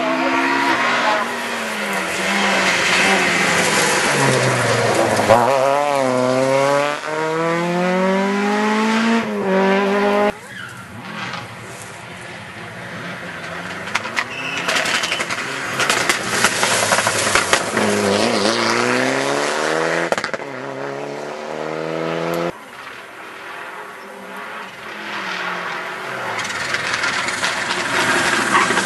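Rally cars driving flat out on a tarmac stage, one after another, one of them a Mitsubishi Lancer Evolution. The engine note climbs and falls repeatedly through gear changes and lifts, and grows louder as each car comes closer. There are abrupt cuts from one car to the next, about ten seconds in and again about two-thirds of the way through.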